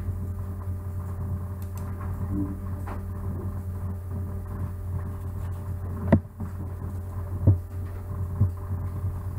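Steady low electrical hum on the recording, with a few sharp computer-mouse clicks, the loudest about six seconds in.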